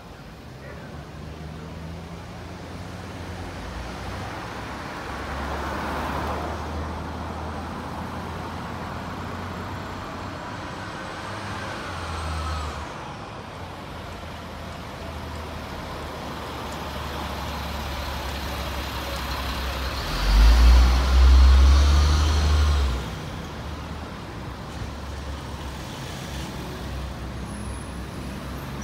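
Street traffic: cars and trucks driving past with a steady rumble and tyre hiss. One heavy vehicle passes close about twenty seconds in and is the loudest sound, for about three seconds.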